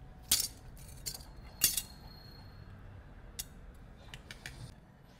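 Shards of broken iPhone back glass and a metal hand tool clicking and clinking as they are handled and set down on a silicone work mat. Two sharp clinks stand out, the second about a second and a half in with a short high ring after it, then a few lighter clicks near the end.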